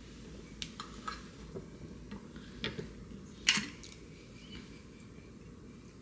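A kitchen knife slicing peeled Korean melon on a wooden cutting board: a few light, irregular taps. About three and a half seconds in comes a louder, sharper clink of a dish set down on the stone countertop.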